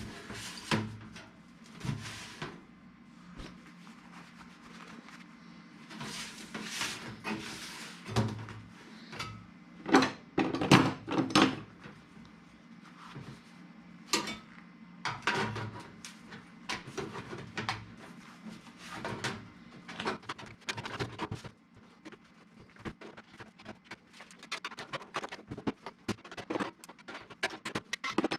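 Irregular knocks, clicks and short scrapes of tools and materials being handled, with a quick run of small clicks near the end, over a faint steady hum.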